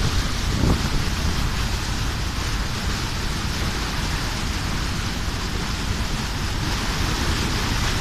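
Steady rushing noise aboard a moving motorboat: water spray churning past the hull and wind on the microphone, with a low rumble underneath and a brief thump about a second in.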